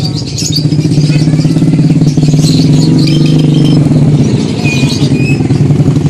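A motorcycle engine idling close by, running steadily, with caged songbirds chirping and giving short high whistles over it, two brief level whistles coming near the end.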